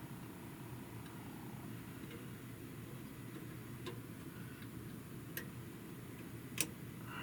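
A few sharp, scattered clicks of a resistor's wire leads and small metal parts being worked into place in the tester's chassis, the loudest near the end, over a low steady hum.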